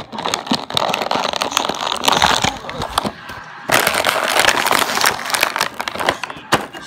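Clear plastic toy packaging crinkling and crackling as it is handled and pulled open, with a short lull about three seconds in.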